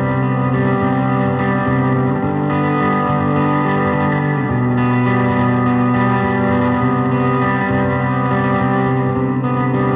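Electric guitar, a 1984 Gibson The SG, played through an Altergear distortion/noise pedal: long sustained chords that change every couple of seconds, smeared with echo.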